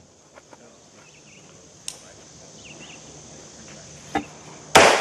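Heckler & Koch MR556 rifle firing: two 5.56 rifle shots near the end, about half a second apart, the second louder with a long echo. A sharper, thinner crack comes about two seconds in.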